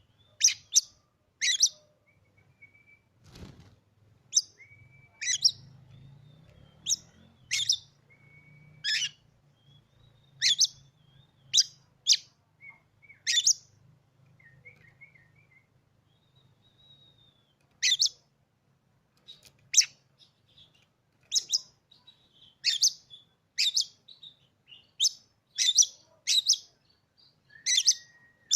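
Oriental magpie-robin (kacer) singing: a run of short, sharp notes repeated about every half second to a second, mixed with brief clear whistles, with a pause of a few seconds midway.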